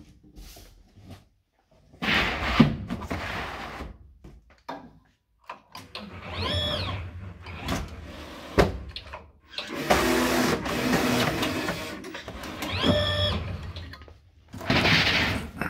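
Semi-automatic carton-opening machine at work on a corrugated cardboard box: the carton rumbles over the ball-transfer table, the machine's motor whines up and down twice as the cutting head moves, and a long rasping stretch in the middle as the cardboard is cut, with clicks and knocks between.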